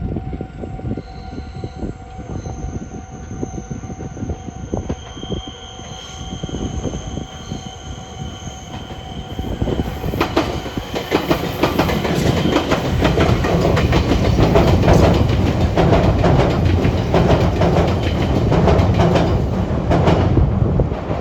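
Electric train wheels running over a junction's points and rail joints. At first a steady whine with scattered clicks, then from about ten seconds in a louder, dense clattering as the train passes close, easing off near the end.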